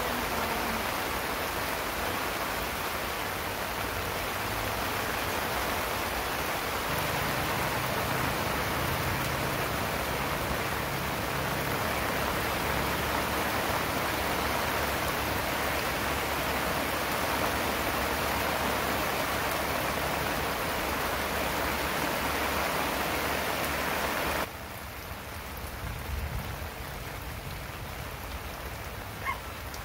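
Steady rain falling on the tarp overhead, a dense even hiss; near the end it drops suddenly to a quieter rain sound.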